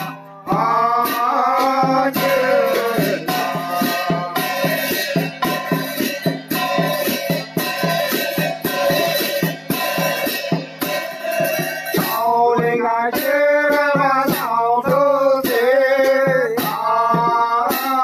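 Male ritual chanting in the Tày–Nùng thầy tào funeral style: a sung incantation with a wavering melodic line, over a quick, steady rattling beat. The voice grows stronger and more ornamented about two thirds of the way through.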